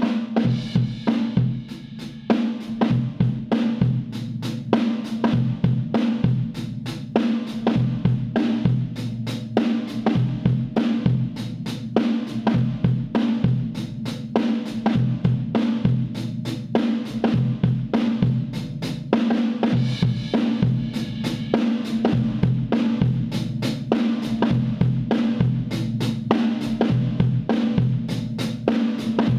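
Drum kit recording playing a steady beat of kick, snare and cymbals, run through an MXR Dyna Comp guitar compressor pedal used as a drum compressor.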